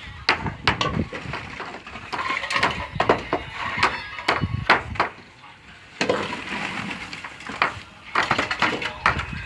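Irregular knocks, clinks and scrapes of manual concrete work, with a short lull about halfway through.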